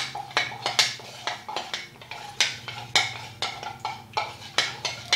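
A spoon stirring cornstarch and water into a slurry in a small glass measuring cup, clinking against the glass in quick, uneven taps, about two or three a second.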